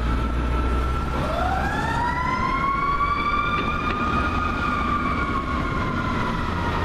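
Fire engine's Federal Q mechanical siren winding up about a second in, its pitch climbing for a few seconds and then slowly coasting down, with a second siren tone held steady underneath and a rumble of traffic.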